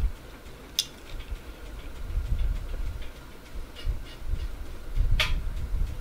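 Close-miked eating and drinking sounds: low chewing and swallowing noises, then gulps of soda drunk from a can, with a few sharp clicks, the loudest about five seconds in.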